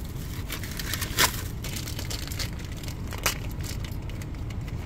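Steady low rumble of a car interior with two short, sharp plastic crackles, about a second in and again a little after three seconds, as a plastic toy egg and its foil wrapper are handled.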